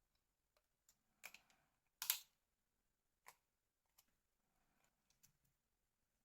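Faint, scattered clicks and taps of small plastic parts being handled as the loudspeaker is fitted back into a Nokia 2720a flip phone; about six clicks at uneven intervals, the loudest about two seconds in.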